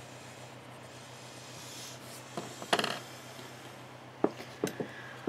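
Drawing on graph paper at a desk: faint strokes on the paper, a louder rubbing scrape a little over two and a half seconds in, then a few sharp clicks and taps on the desk near the end.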